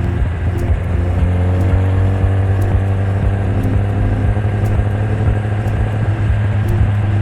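Kawasaki ZX-10R's inline-four engine running at fairly steady revs under way, its pitch drifting only slightly.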